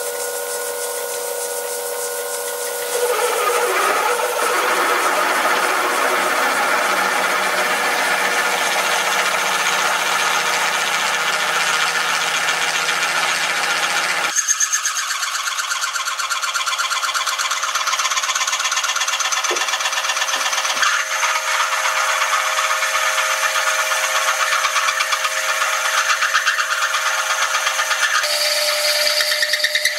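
Metal lathe spinning a 15.5 mm twist drill through a steel block: a steady machine whine with the grinding and scraping of the drill cutting steel. It gets louder about three seconds in and shifts sharply about halfway through.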